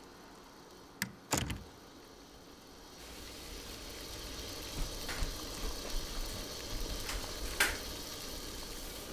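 Pot boiling on an electric stovetop: a steady hiss of steam and bubbling starts about three seconds in. Sharp knocks come about a second in, and one more near the end.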